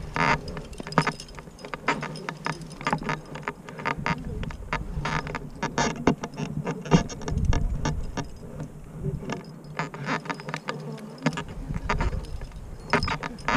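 A climber's hands and shoes scuffing on rock, with metal climbing gear clinking on the harness in irregular small clicks. Wind rumbles on the microphone at times.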